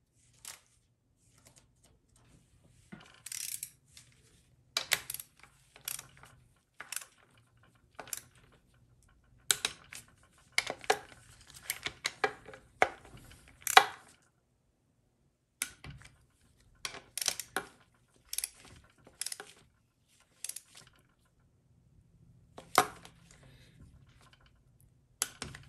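A torque wrench tightening the front pump-to-case bolts of a GM TH400 automatic transmission to full torque of 18 foot-pounds. Irregular sharp metallic clicks and short runs of ratcheting clicks.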